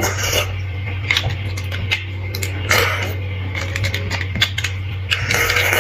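Close-miked eating of soft roasted bone marrow and fatty meat: many small wet clicks of biting and chewing, with a longer sucking, slurping hiss about three seconds in and again near the end. A steady low hum runs underneath.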